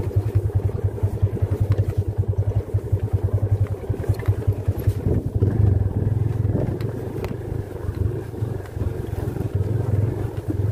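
Single-cylinder motorcycle engine running under the rider on a bumpy dirt trail, with a fast pulsing beat at low revs for the first few seconds. About halfway through it runs louder and steadier as it pulls harder. A few sharp knocks come through in the middle.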